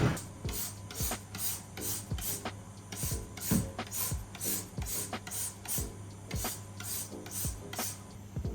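Brisk back-and-forth scrubbing of a surface during household cleaning, about three strokes a second.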